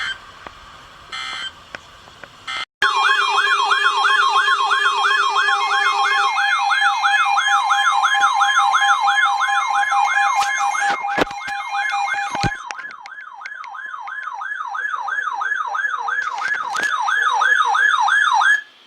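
Weather radio emergency alert tones. Three short buzzy data bursts are followed by a loud warbling siren-like alarm, its pitch sweeping up and down about two and a half times a second over steady alert tones. The steady tones drop out about six and twelve seconds in, with a few clicks near the middle, and the warble cuts off sharply at the end.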